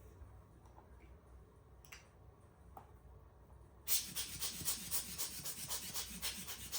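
Brisk rubbing strokes, about five a second, from hand-wiping camera equipment during cleaning, starting about four seconds in.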